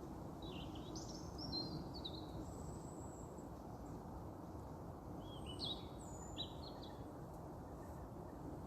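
A songbird singing two short phrases of quick, high, varied notes, about four seconds apart, over a steady low rumble of background noise.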